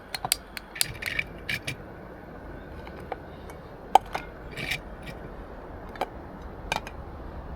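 Metal camp cookware being handled: a string of irregular clinks and knocks of pot, lid and utensils, some in quick little clusters, over a faint low rumble.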